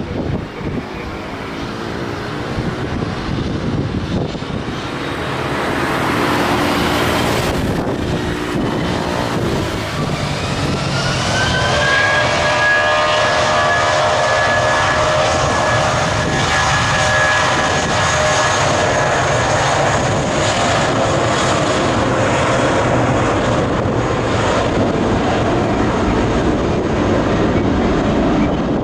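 Airbus A320's jet engines spooling up: a steady roar, then a whine that rises in pitch about ten seconds in and levels off as the engines reach take-off power, growing louder over the first twelve seconds.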